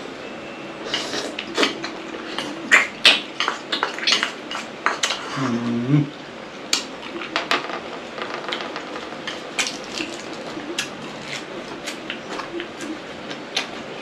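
Sharp irregular clicks and clinks of blood cockle shells and dishes as cooked cockles are handled and pried open, densest in the first half.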